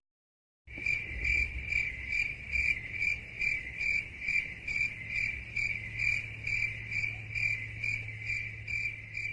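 Crickets chirping in a steady, even rhythm of about two to three chirps a second, with a low hum under them, starting under a second in: the stock crickets sound effect used for an awkward silence.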